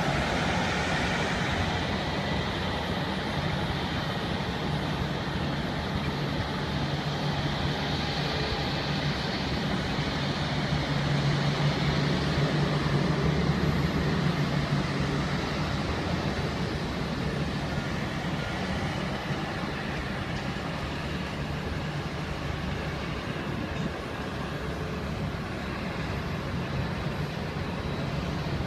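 Steady jet airliner engine noise: a continuous rush with a low hum underneath, swelling a little about halfway through.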